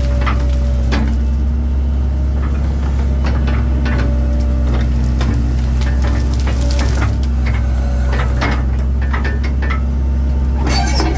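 1997 Link-Belt 2700 excavator's diesel engine running steadily under working load, with many sharp cracks and knocks of limbs and brush breaking as they are pushed aside, and a denser burst of crackling near the end.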